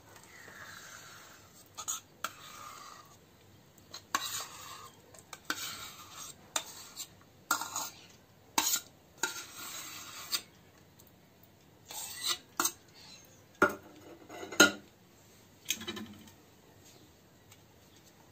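Stainless steel cup and pan clinking and scraping against each other as thick milk cream is scooped out of the cup into the pan: scattered metal scrapes and sharp clinks, the loudest about fourteen and a half seconds in.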